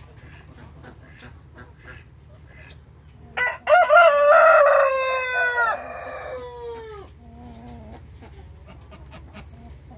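A rooster crows once, a loud cock-a-doodle-doo lasting about three and a half seconds that starts about three seconds in, its long last note falling in pitch.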